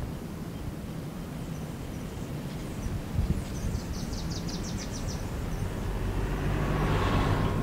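Steady low outdoor rumble with a short run of high, evenly spaced chirps about halfway through, growing louder toward the end.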